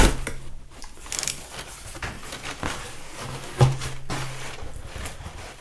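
Cardboard shipping box being opened: a sharp crack as the taped flaps come free right at the start, then rustling and scraping of cardboard and crumpled packing paper with a few clicks. A low steady hum runs underneath.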